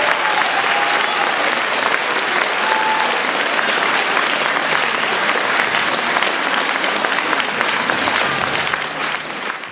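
Audience applauding steadily, with the applause fading out near the end.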